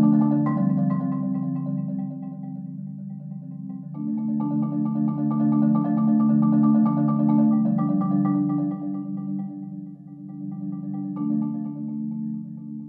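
Concert marimba played with mallets: sustained rolled chords in the low register, shifting to a new chord about four seconds in and again near the end, growing softer toward the close.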